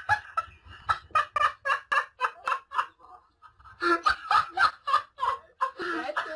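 A person's rapid, high-pitched staccato laughter in short bursts, about four to five a second, easing off around three seconds in and then picking up again.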